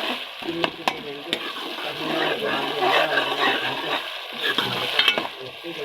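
Food frying and sizzling in a pan as it is stirred, with a few sharp clicks of the utensil against the pan.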